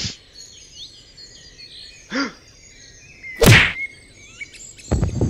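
Soundtrack of birds chirping in the background, with added hits over it: a short thud about two seconds in, a loud sharp whack about three and a half seconds in, and a rapid run of clicks and knocks near the end.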